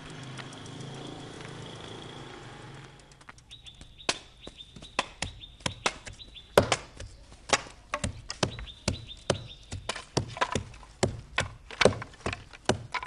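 Steady outdoor ambience, then, after a few seconds, sharp irregular knocks of chopping and pounding, two or three a second: wood being split and a wooden pestle striking in a stone mortar.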